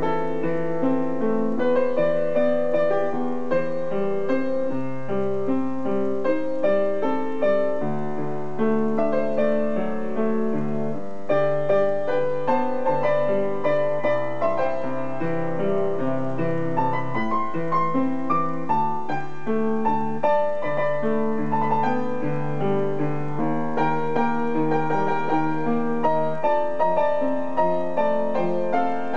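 Solo upright acoustic piano playing a pop-song arrangement: a melody in the right hand over held chords and bass notes in the left.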